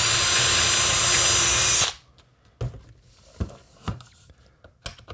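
DeWalt 20V MAX cordless drill running at speed with a steady high whine, its bit reaming out a too-tight hole in a 3D-printed plastic drill bit case to make room for a bit. It stops abruptly about two seconds in, followed by a few light knocks as the case is handled.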